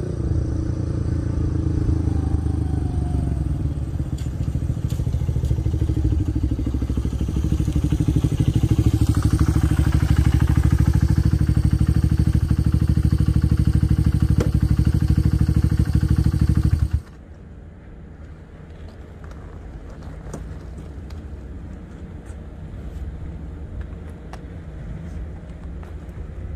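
Honda Ape 100's single-cylinder four-stroke engine coming up with its pitch rising and falling, then running steadily close by before it is switched off and cuts out suddenly. Faint scattered clicks follow.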